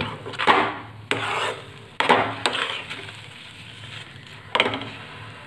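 Metal spoon scraping around a metal kadhai while stirring thick besan halwa, in a few separate strokes: three close together in the first half and one more near the end.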